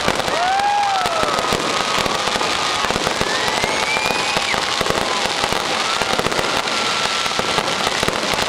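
Fireworks display: a continuous barrage of rapid bangs and crackling from shells bursting, with several long whistling tones rising and falling over it.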